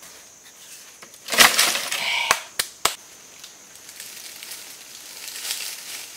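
Dry branches and sticks crackling and snapping: a loud crash of dry wood about a second and a half in, then three sharp cracks in quick succession.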